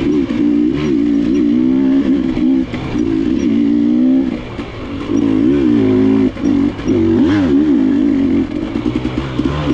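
KTM enduro dirt bike engine revving up and down as the throttle is worked on a trail, with short drops in revs about four and a half and six seconds in.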